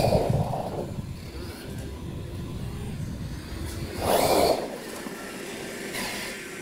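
Losi LMT electric RC monster truck driving on a 2S LiPo battery, its brushless motor whining up in pitch in two throttle bursts, at the start and about four seconds in, over a low rumble that drops away after about four and a half seconds.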